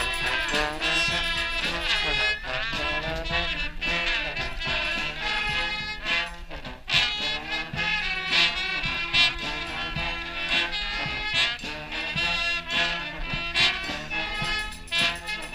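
Street brass band playing a tune: massed horns over drums keeping a steady beat.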